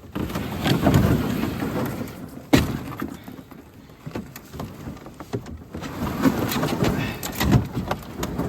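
Small boat being launched onto a pond with thin ice: irregular water splashing and clattering knocks against the hull, with one sharp knock about two and a half seconds in.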